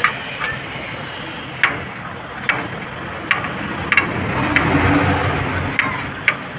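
A few sharp metal clicks, irregularly spaced about a second apart, as a socket driver tightens the hub nut that holds a plastic fan blade on a 12 V DC cooler motor shaft. A steady low rumble runs underneath and swells for a while a little past halfway.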